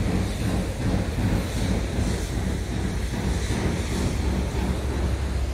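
Scania R500 tractor unit's 13-litre inline-six diesel idling steadily, with wind rumbling on the microphone.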